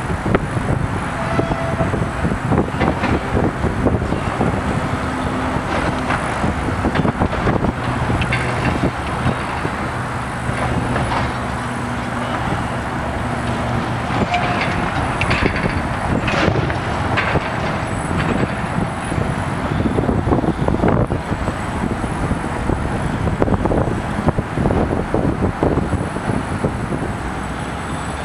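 Building demolition by a Link-Belt LS-518 crawler crane working a clamshell bucket: a diesel engine running steadily under a din of irregular crashes and clatters as concrete is knocked loose.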